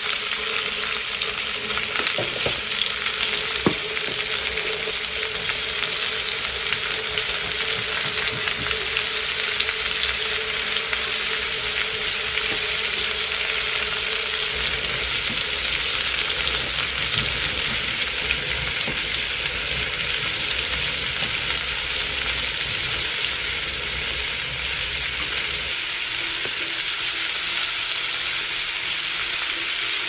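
Eggs frying in oil in a skillet: a steady, unbroken sizzle, with a faint steady hum under it for about the first half.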